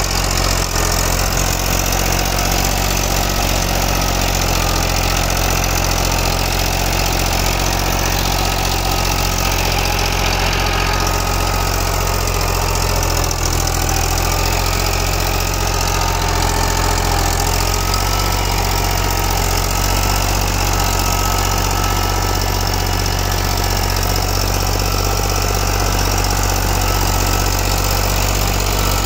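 Farm tractor's diesel engine running steadily under load while it pulls a tillage implement through dry soil, with a thin steady whine above the engine note.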